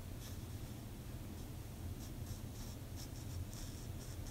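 Faint, short scratchy rustles of hair sliding and rubbing through the plates of a mini flat iron as a ponytail is curled, heaviest from about two seconds in, over a low steady hum.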